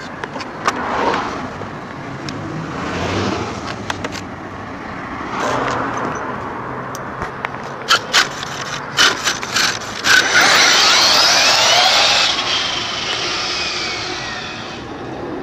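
Brushless electric RC monster truck (Savage XL 5.9 with a Flux motor conversion) taking off and speeding away. A few sharp clicks come first, then from about two-thirds of the way in a loud high whine of motor and gears, gliding up and down in pitch and fading as the truck pulls away.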